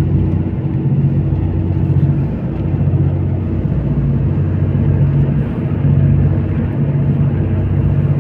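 Passenger train running, heard from inside the carriage: a steady low rumble with a droning hum that comes and goes.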